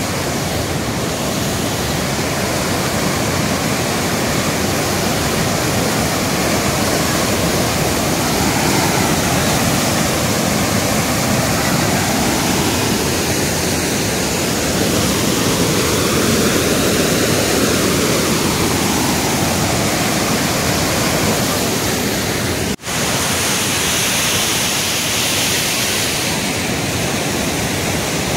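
Dhuandhar Falls on the Narmada river: a loud, steady rush of white water pouring over rock, heard close up. The sound cuts out for a split second once, near the end.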